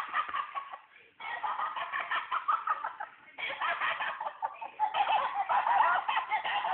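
Laughing plush dog toy playing its recorded laughter, a rapid cackle, in bouts broken by short pauses about a second in and about three seconds in.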